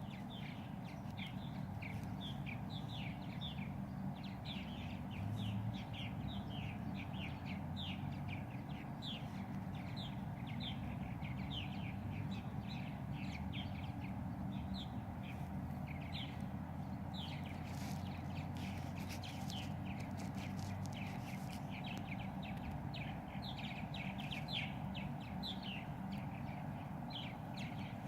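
Birds chirping continuously: a steady stream of short, quick, high notes that sweep downward, over a steady low rumble.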